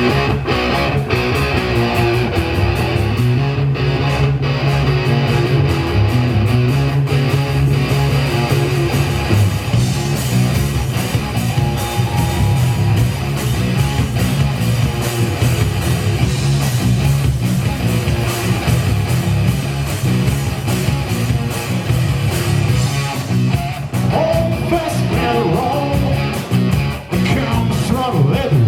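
A live hard rock band playing an instrumental section, led by electric guitar over a steady, heavy low end.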